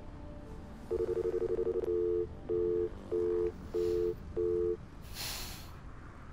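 Mobile phone call that does not connect: about a second of rapid pulsing tone, then five short beeps of a busy signal, roughly one every 0.6 s, meaning the line is busy or unavailable.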